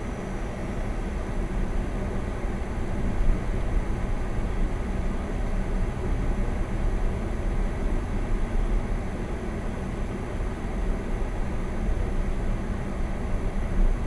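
Steady rumble of a car driving on a snow-packed road, heard from inside the cabin: engine and tyre noise, with a brief bump about three seconds in and another near the end.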